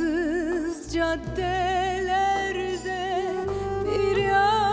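A woman singing a Turkish pop song live, holding long notes with a wide vibrato over orchestral accompaniment.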